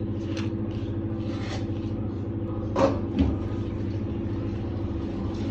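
A steady machine hum, with a few short clinks and a low knock about three seconds in.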